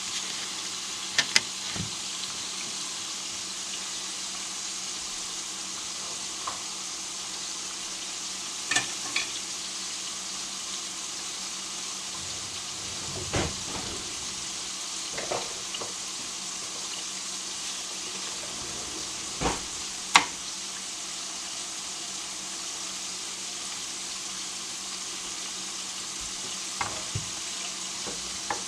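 Burger patties and French fries frying in hot grease: a steady sizzle, broken by a few scattered sharp clicks and knocks, the loudest about twenty seconds in.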